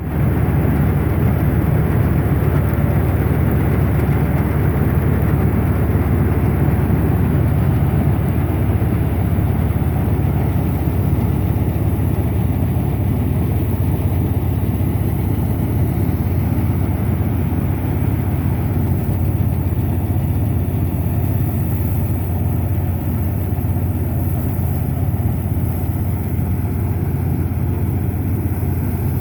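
Mini combine harvester running steadily, a loud, even engine drone with machinery noise that hardly changes.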